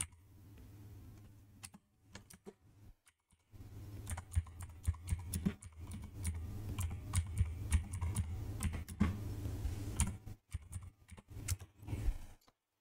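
Typing on a computer keyboard: a quick run of key clicks starting about three and a half seconds in and stopping just before the end.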